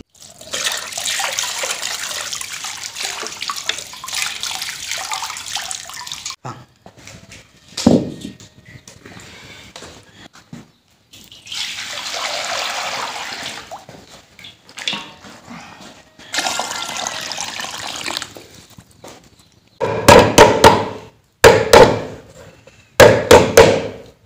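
Water poured from a plastic scoop over a plucked chicken into a metal basin, then, about halfway through, water poured into an iron wok. Near the end, a cleaver chops ginger on a wooden board in quick runs of sharp strokes.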